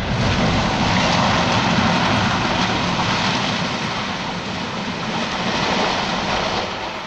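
High-rise tower block collapsing after explosive demolition charges: a long, loud rumble of falling masonry that slowly dies away near the end.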